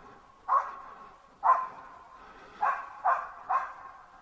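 A hunting laika barking in the forest: five single barks in an uneven series, each trailing a short echo.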